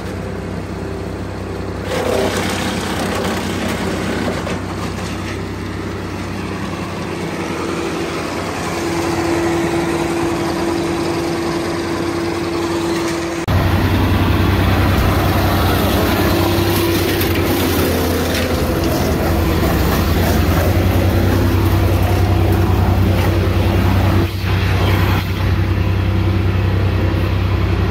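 Brush chipper engine running at a steady speed, its hum getting sharply louder about halfway through.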